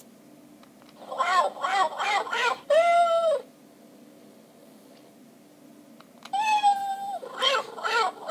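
Hasbro i-Cat robotic toy cat playing electronic meow-like calls through its small speaker in test mode: four quick calls about a second in, then one longer held note. After a pause of about three seconds comes another held note and more quick calls near the end.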